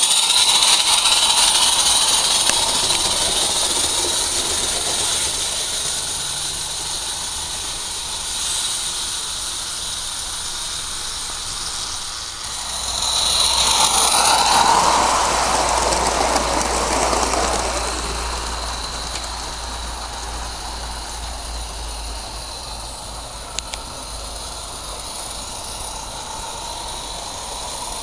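16 mm scale live-steam garden-railway locomotive hauling its coaches, giving a steady running noise of steam and wheels on rail. The noise is loud at first, swells again as the engine passes close about 13 to 17 seconds in, and then fades as it runs away.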